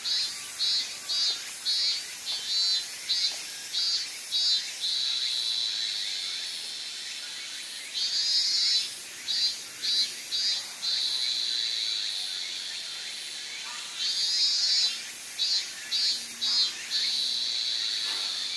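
A cicada singing in repeated phrases: a buzzy burst, a run of short pulses, then a long steady high drone. New phrases start about 8 and 14 seconds in.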